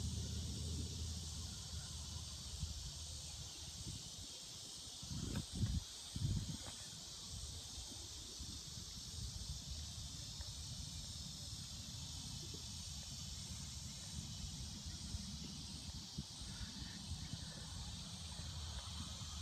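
A steady, even insect chorus, a high hiss of chirring crickets or similar insects, over a low rumble, with a few low thumps about five to six seconds in.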